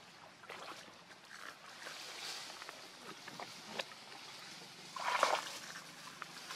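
Dry leaf litter rustling and crackling under a macaque's hands and feet as it moves about on the ground, with a louder brief noise about five seconds in.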